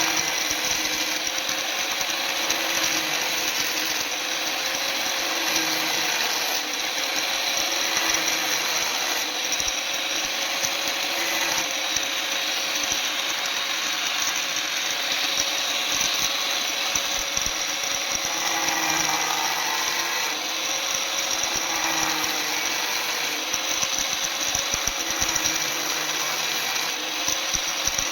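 Electric power tool running steadily with a constant high hiss, its motor hum wavering slightly in pitch.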